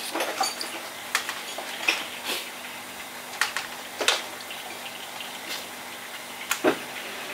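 Steady rush of water in concrete crayfish holding tanks, with scattered sharp clicks and knocks of plastic crayfish boxes and a plastic basket being handled, one of the louder knocks near the end.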